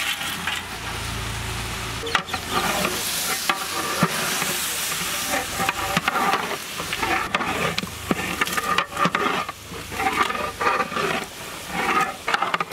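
Boiled mutton pieces tipped from a steel platter into a large pot of hot, sizzling masala, then stirred with a metal ladle that scrapes and knocks against the pot in irregular strokes over a steady sizzle.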